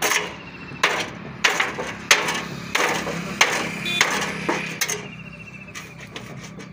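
Repeated hammer blows fastening a feeder made from a cut-open iron oil tin to a tree trunk. About eight sharp strikes come a little more than one a second, growing weaker after about five seconds.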